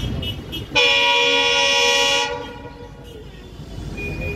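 Train horn sounding one loud blast of about a second and a half, starting about a second in, over a low rumble.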